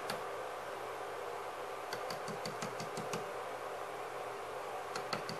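Two short runs of light, rapid clicks, about two seconds in and again near the end, over a steady background hiss.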